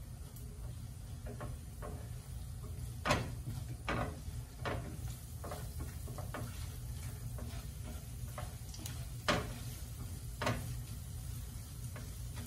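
Silicone spatula stirring onions and spices in a non-stick frying pan, knocking and scraping against the pan in irregular taps, the loudest about three and nine seconds in, over a low steady hum.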